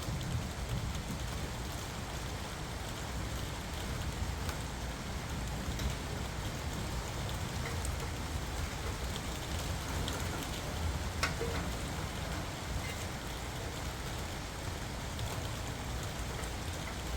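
Steady background hiss over a low rumble, with a few faint brief clicks.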